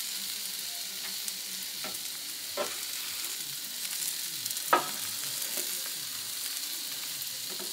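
Egg omelette frying with a steady sizzle on a Blackstone E-Series electric griddle. A few short scrapes and taps of a spatula on the griddle plate come through; the loudest is a little past halfway, as the spatula slides under the egg.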